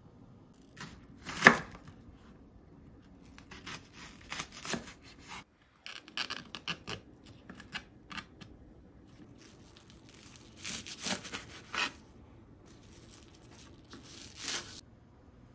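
Kitchen food-preparation sounds: several separate bursts of rustling and scraping, the loudest about a second and a half in, with a run of short light taps in the middle.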